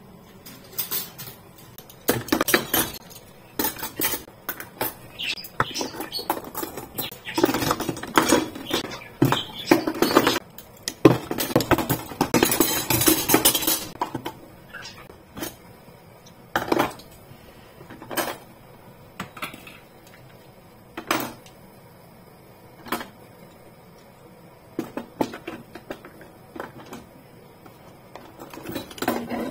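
Metal cutlery (spoons, forks and knives) clinking and clattering as it is sorted into a plastic cutlery tray in a pull-out kitchen drawer. The clatter is busy through the first half, then thins to scattered single clinks.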